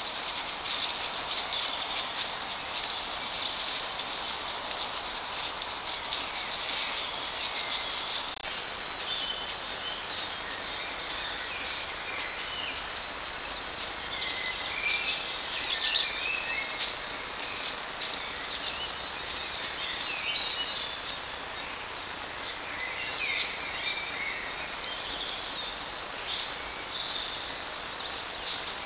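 Woodland birds singing, many short overlapping chirps and trills, picked up by a trail camera's built-in microphone over its steady hiss. A single faint click about eight seconds in.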